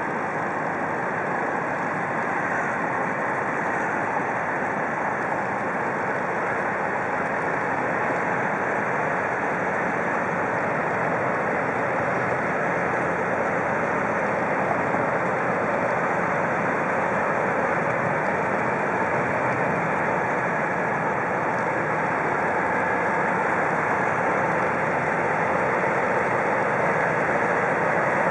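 Steady drone of a river push boat's diesel engine with the wash of its barge convoy, growing slowly louder as it passes.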